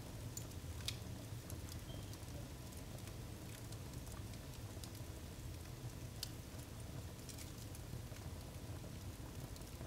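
Wood fire burning in a fireplace, crackling with irregular sharp pops over a low steady hum.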